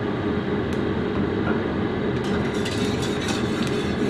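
A steady low mechanical rumble runs throughout. From about halfway in it carries light clicks and scrapes of a metal spatula against a steel wok.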